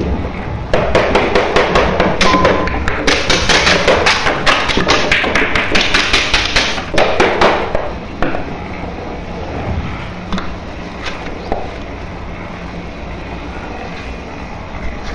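A fast run of sharp taps, about four a second, lasting some seven seconds and then stopping, leaving a quieter steady background.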